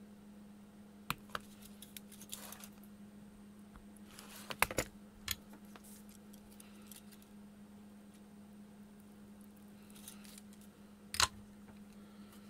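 Scattered small clicks and taps from handling a component lead and tools on a perfboard, the loudest a quick cluster about four and a half seconds in and a sharp one near the end, over a steady low hum.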